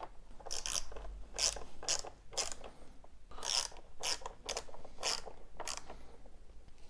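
Hand ratchet clicking in short back-and-forth strokes, about two a second, as the bolts on the battery terminals are tightened down. It stops about six seconds in.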